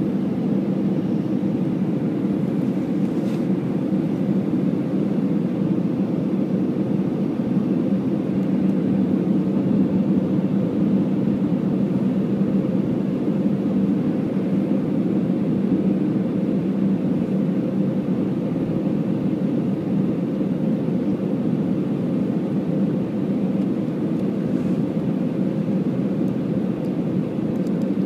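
Steady cabin drone inside an Airbus A319-114 on approach, heard beside the wing: the CFM56-5A turbofan engines and rushing airflow blend into an even low rumble with a steady hum, unchanging throughout.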